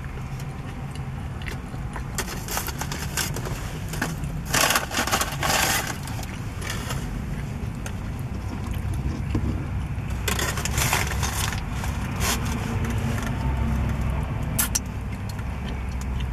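Aluminium foil wrap around a burrito crinkling as it is handled, and tortilla chips crunching, in several short crackly bursts. Under them runs a steady low rumble.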